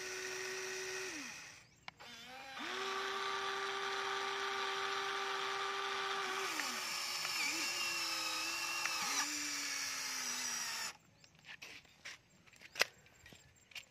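Electric gear motors of a Huina radio-controlled toy excavator whining as the boom and arm move, in several runs with short pauses, the pitch sagging during the later moves. The motors stop about eleven seconds in, followed by a few small clicks and one sharp knock near the end.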